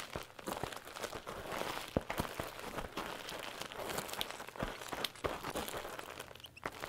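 Irregular crackling and crunching, with scattered sharp clicks throughout.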